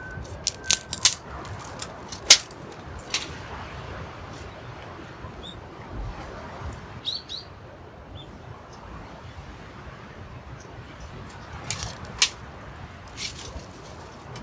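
A few sharp clicks and knocks, a cluster in the first couple of seconds and another near the end, over a steady background hiss, with a couple of brief high chirps midway.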